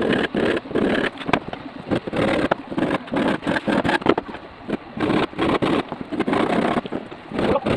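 Handsaw cutting through a small block of wood, its teeth rasping in rhythmic back-and-forth strokes, about two a second. The sawing pauses briefly about four seconds in, then starts again.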